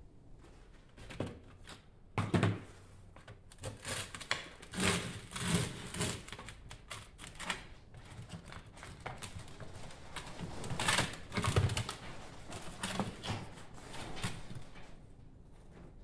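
Metal mold parts and fresh copper castings being handled and pulled apart: irregular clanks, knocks and scrapes of metal on metal, loudest about two seconds in and again around eleven seconds in.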